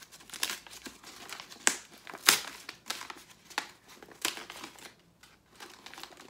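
Wrapping paper crinkling and tearing as a wrapped book is opened by hand: a run of sharp paper crackles, the loudest about two seconds in, with a short lull near the end.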